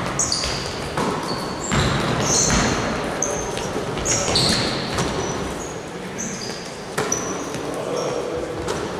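Basketballs bouncing on a gym floor, with many short, high-pitched sneaker squeaks from players moving on the court.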